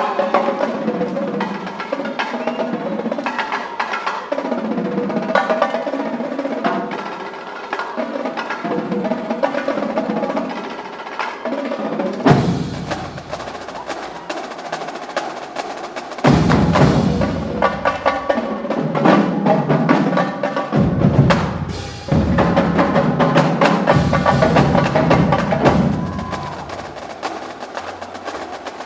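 Marching band drumline playing a cadence: snare drums with rapid stick and rim clicks and rolls, together with tenor and bass drums. About twelve seconds in, and through much of the second half, the full line comes in with heavy bass drum and cymbal hits.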